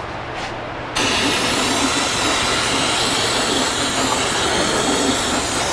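Aerosol can of brake cleaner spraying onto a brake line fitting: one continuous loud hiss that starts suddenly about a second in.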